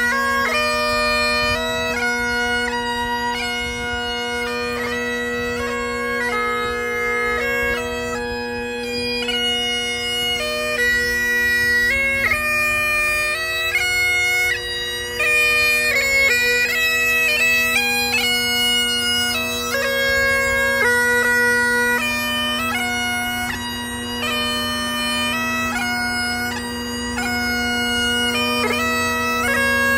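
Bagpipes playing a tune over a steady, unbroken drone.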